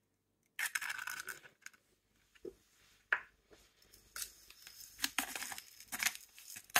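A hand-twisted spice mill grinding, a series of quick crunchy rasping strokes through the second half. About half a second in there is an earlier rasping crunch lasting about a second, and a single sharp click near the middle.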